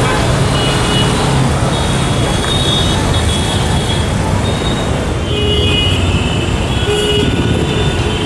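Steady loud road-traffic rumble with several short vehicle-horn toots through the middle and later part.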